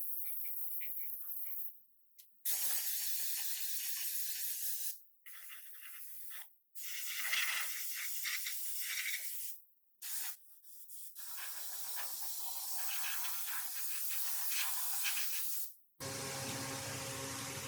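Compressed-air spray gun hissing in several passes of two to four seconds each, cut by abrupt silent gaps. Near the end a steadier sound with several held tones takes over.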